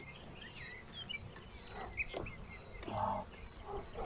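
Faint, short bird chirps, with a few soft knocks and scrapes from a hive tool working the outer frame of a beehive loose.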